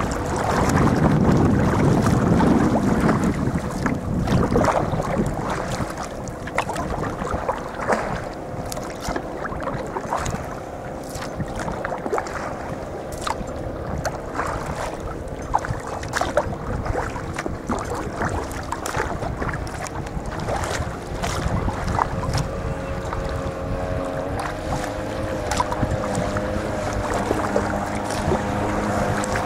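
A sea kayak being paddled on open sea: water splashing and dripping from the paddle strokes, with wind buffeting the microphone, heaviest in the first few seconds, and a faint steady hum underneath.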